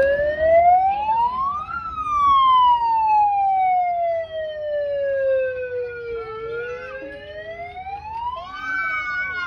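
Handheld megaphone's siren mode wailing. It rises slowly in pitch to a peak about two seconds in, falls slowly for several seconds, then rises to a second peak near the end.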